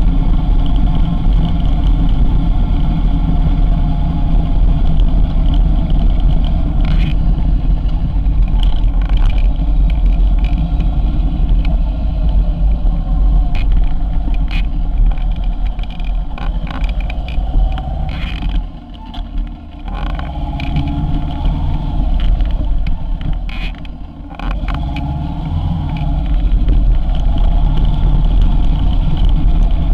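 Kawasaki motorcycle engine running steadily under way, with road rumble. It eases off twice briefly past the middle.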